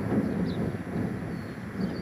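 Gusty wind buffeting the microphone in an uneven rumble, with a light aircraft's engine running underneath.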